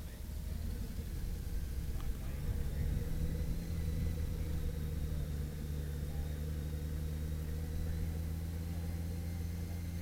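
Touring motorcycle engine running at low speed, a steady low hum that gets stronger about three seconds in.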